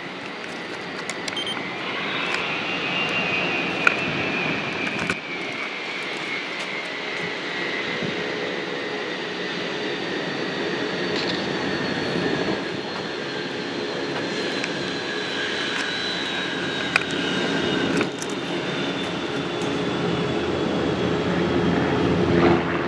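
Jet airliner engines passing, a high whine slowly falling in pitch over a steady rumble that grows louder toward the end.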